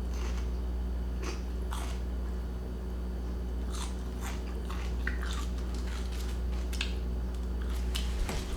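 A person chewing and biting into crunchy food close to the microphone: irregular short crunches over a steady low hum.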